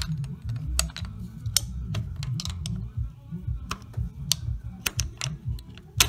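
Irregular small metallic clicks and taps of a tool levering a spacer out of the valvetrain of a BMW N52 straight-six under its removed valve cover, over a low rumble.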